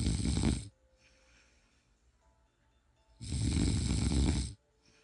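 A person snoring in a slow, regular rhythm: a loud snore tails off under a second in, a fainter breath out follows, and another loud snore of about a second and a half comes a little after three seconds in.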